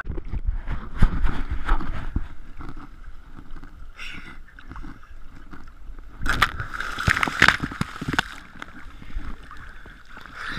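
Lake water sloshing and lapping around a camera held at the surface, with a louder stretch of splashing about six seconds in.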